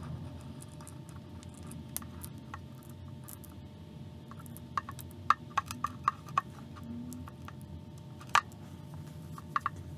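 Scattered light clicks and taps of metal car brake parts and tools being handled, a quick cluster about halfway through and a few single knocks later, over a steady low hum.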